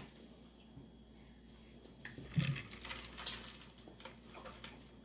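Eating sounds: chewing and wet mouth noises with a few light clicks, starting about two seconds in after a quiet stretch.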